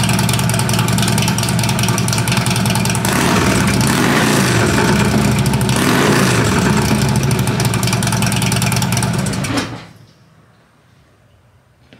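2015 Harley-Davidson Street Glide's Twin Cam 103 V-twin running through a Bassani 2x2 header with the catalytic converter removed and S&S slip-on mufflers. It idles, is revved up and down a couple of times, and is switched off near the end.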